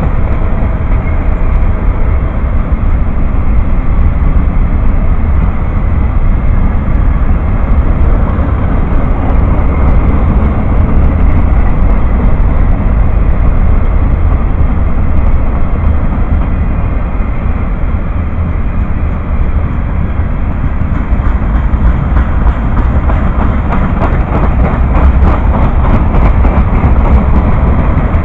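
A long mixed freight train's cars rolling past close by: a loud, steady rumble of steel wheels on rail. Rhythmic clicking of the wheels over the rails becomes more distinct in the last several seconds.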